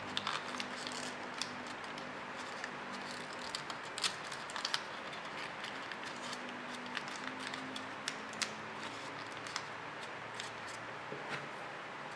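Folded origami paper crinkling and clicking in the hands as its corners are worked and tucked in, many small sharp crackles over a steady hiss.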